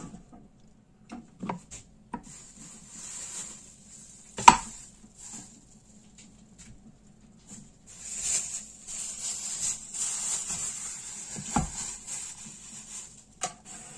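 Plastic cheese moulds knocking and clacking on a steel tray as they are handled and stacked, with one sharp knock about four and a half seconds in and another near twelve seconds. A plastic bag crinkles around the mould in bursts, over a steady low hum.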